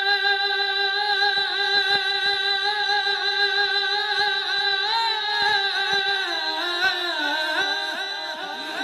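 A young man's voice reciting a naat, holding one long high note on the word 'Rasool', steady for several seconds, then wavering in ornamented turns from about five seconds in.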